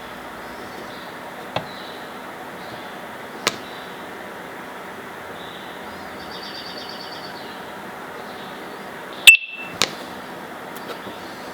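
Sharp clicks from handling and pressing the buttons of wireless intercom doorbell units during pairing. There are a few scattered clicks, and the loudest, about nine seconds in, comes with a short high beep. A faint rapid chirping tone sounds midway.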